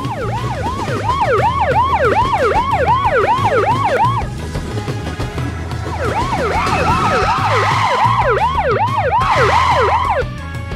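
Cartoon police siren sound effect: a fast wail that sweeps down and up in pitch about three times a second, in two runs with a short break of about two seconds in the middle.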